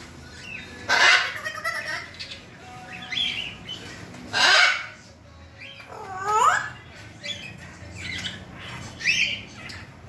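African grey parrot making a series of short squawks and calls, one every second or two, the loudest about four and a half seconds in. One call near the middle swoops down in pitch and back up.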